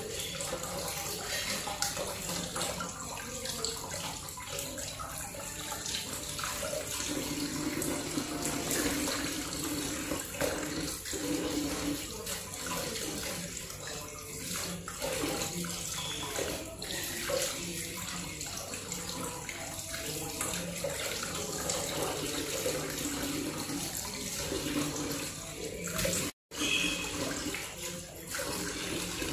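Kitchen tap running into a stainless steel sink, water splashing as hands rinse pieces of cut fish under the stream. It breaks off for an instant near the end.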